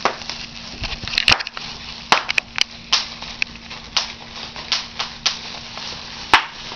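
Pink plastic bubble wrap being popped by hand: a run of irregular sharp pops, about a dozen, with the loudest about six seconds in.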